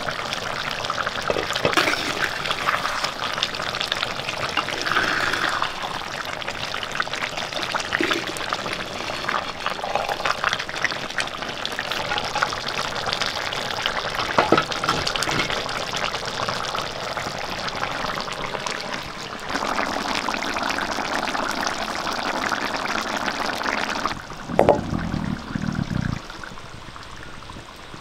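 Chicken curry boiling in a pan: steady bubbling and sputtering with scattered clicks, and a few louder knocks near the end.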